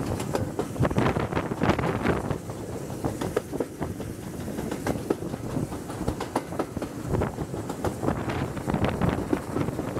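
Steam-hauled train running at speed behind SR West Country Class locomotive 34027 Taw Valley, heard from the window of the coach just behind the tender. Wind buffets the microphone over the train's running noise.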